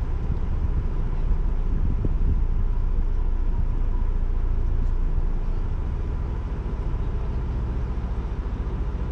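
Ford Bronco Wildtrak's 2.7-litre twin-turbo V6 and tyres on a dirt trail at a slow crawl, picked up on the hood: a steady low rumble with a faint thin whine on top.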